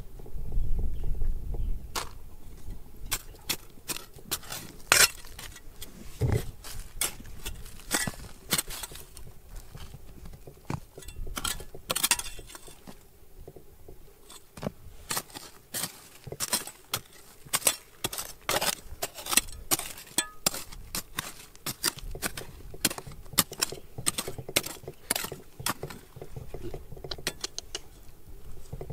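Rocks and digging tools clinking and knocking together in an uneven series of sharp taps, at times several a second.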